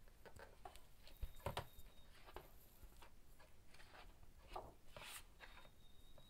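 Near silence with a few faint rustles and soft knocks as a hardcover picture book is opened and handled, the firmest about a second and a half in and another about five seconds in.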